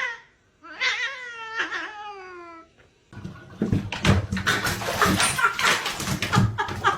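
A cat meowing: one long, drawn-out meow that falls in pitch at the end, followed from about three seconds in by a louder stretch of rustling and knocking.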